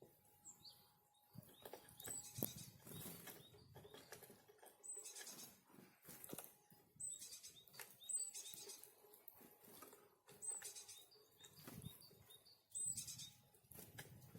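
Small forest birds calling with short, high chirps repeated many times, among quick flutters and rustles.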